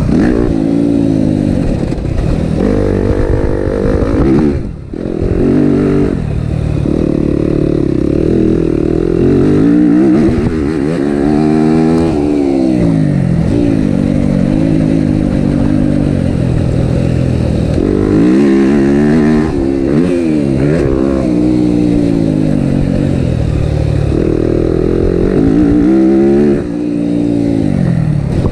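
Yamaha motocross bike's engine revving up and dropping back again and again as the rider accelerates, shifts and eases off around the track, with a brief sharp throttle cut about five seconds in.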